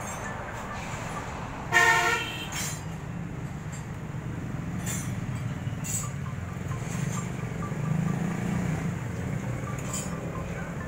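A vehicle horn toots once, briefly, about two seconds in, over a steady low rumble.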